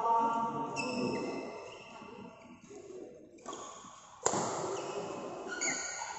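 Badminton rally on an indoor court: shoes squeaking on the floor, and one sharp, loud racket strike on the shuttlecock a little past four seconds in.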